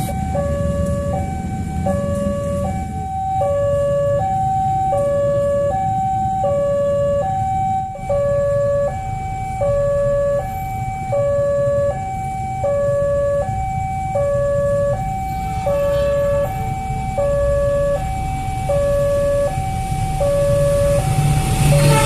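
Railway level-crossing warning alarm sounding a repeating electronic two-tone high-low signal, about one cycle a second, warning of an approaching train. A low rumble runs underneath and grows louder near the end as the train arrives.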